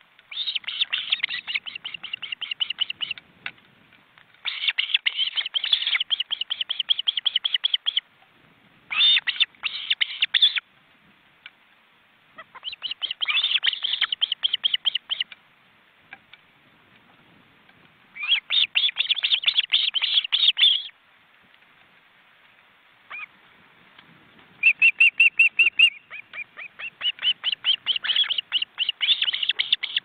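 Ospreys at the nest calling: bouts of fast, high-pitched whistled chirps, each lasting a few seconds, repeated about six times with short pauses between them.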